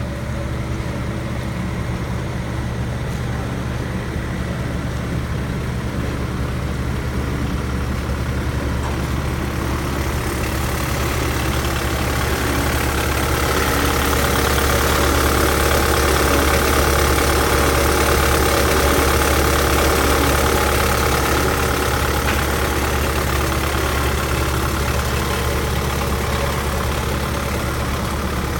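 Bobcat T190 skid steer's 66 hp Kubota turbo diesel engine running steadily with a constant low hum. About a third of the way in it grows louder and brighter for roughly ten seconds, then settles back.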